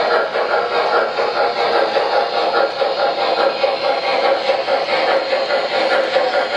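MTH Premier O-gauge model of a New York Central Mohawk 4-8-2 steam locomotive running steadily, with its onboard sound system giving a continuous steam chuff over the noise of the wheels on the track.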